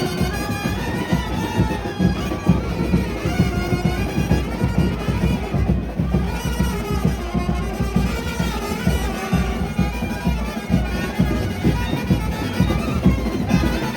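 Indian procession brass band playing a wavering melody on its horns, with drums beating fast underneath.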